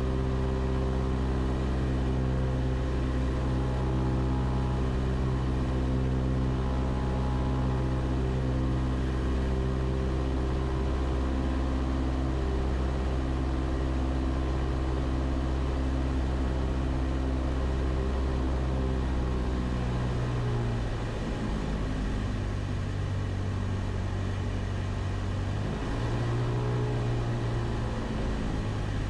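Cessna 172 Skyhawk's piston engine and propeller running at cruise power, heard from inside the cabin as a steady drone. About two-thirds of the way through, the engine note drops in pitch and loudness. Near the end it briefly rises and falls again.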